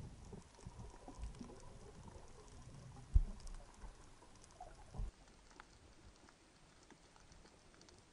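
Underwater sound through an action camera's housing as a freediver duck-dives and descends: water rushing and bubbling at the start, a sharp thump about three seconds in and a smaller one about five seconds in. After that only faint scattered clicks and crackles remain.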